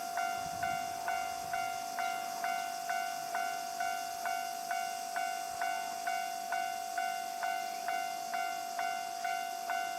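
Japanese railway level-crossing warning bell ringing: an even, repeated ding, about two strikes a second, each one dying away into a steady ringing tone.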